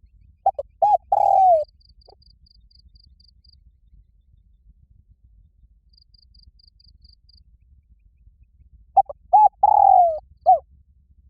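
Spotted dove giving its loud, ringing challenge coo twice. Each phrase is a few short notes and then a long falling coo: one about half a second in, the other near the end.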